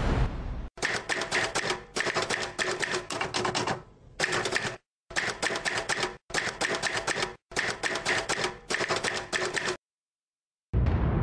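Typewriter keystroke sound effect: rapid runs of key clacks in about six bursts of a second or so each, broken by short, abrupt silences, with a longer silence near the end.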